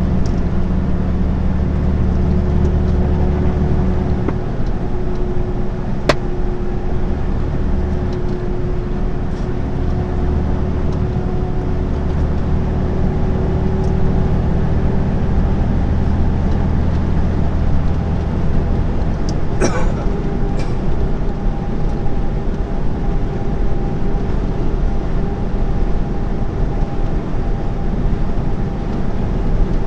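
Steady engine drone and tyre and road noise inside the cab of a delivery truck driving at speed, with a single sharp click about six seconds in and a brief rattle near twenty seconds.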